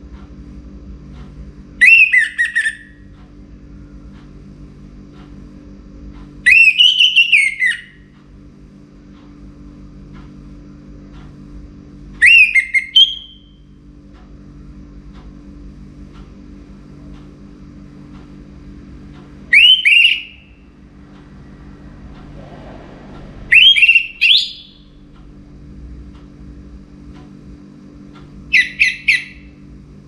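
Caged orange-headed thrush singing in full voice: six short, loud whistled phrases of about a second each, spaced several seconds apart, over a steady low hum.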